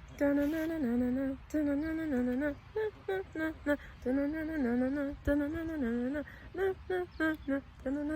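A woman humming a slow, wordless tune in short phrases, a farewell song for a dead hen.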